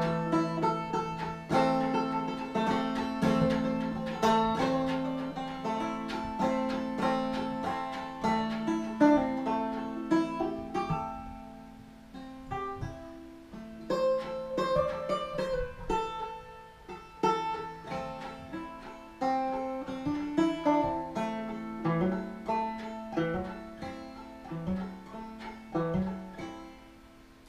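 Solo five-string banjo fingerpicked in bluegrass style, with a capo on the neck: quick rolls of plucked notes. The playing grows softer and the tune ends with a few last notes ringing out near the end.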